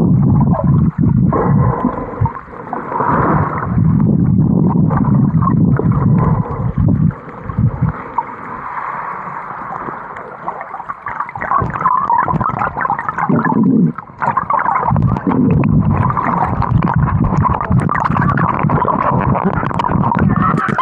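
Dull, muffled underwater sound from a submerged action camera's microphone: water rushing and gurgling around it as the swimmer moves, in uneven surges.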